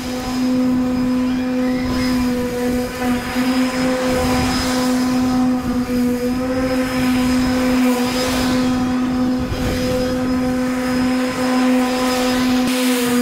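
Steady machine hum holding one constant pitch with a stack of overtones, with swells of rushing air noise every few seconds.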